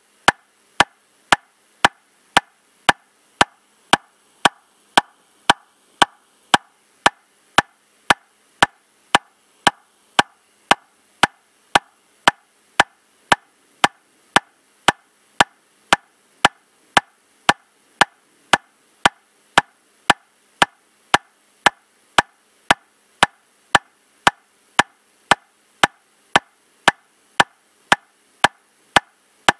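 Metronome clicking steadily at 115 beats per minute, just under two evenly spaced sharp clicks a second.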